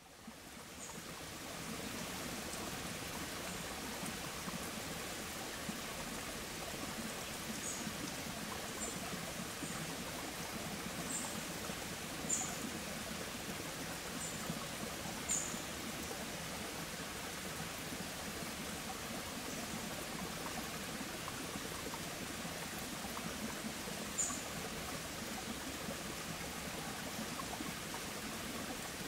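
Steady rushing of running water, fading in at the start, with short high-pitched bird chirps now and then.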